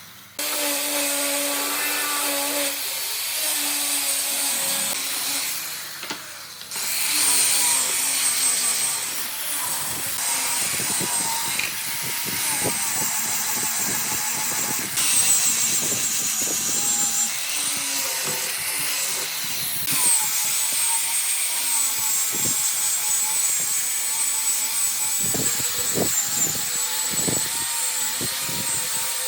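Power tools running on wood, a steady noisy machining sound with a high whine, broken into several stretches, with a few sharp knocks near the end.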